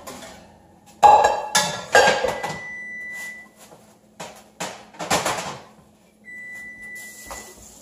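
Metal clanks and rattles of an oven rack and baking pan as a foil-wrapped packet is pulled out of an oven with oven mitts and set on the stovetop, the loudest knocks about one, two and five seconds in. A steady high tone sounds twice, each time for about a second.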